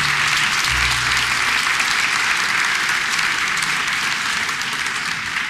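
Theatre audience applauding at the end of a juggling act, a dense patter of many hands clapping that tapers off near the end. The last low note of the backing music dies away in the first second or so.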